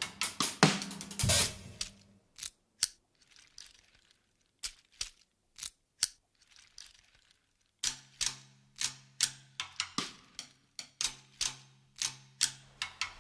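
Drum-kit music: hits die away into a few sparse, sharp clicks and taps, then about eight seconds in a regular beat of hits returns over a low steady tone.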